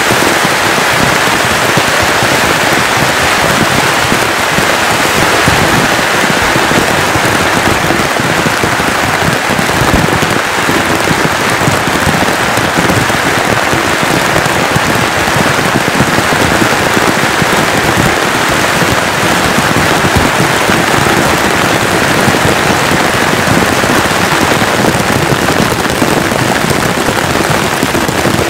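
Heavy rain falling steadily, its drops striking a taut nylon tarp in a dense crackle.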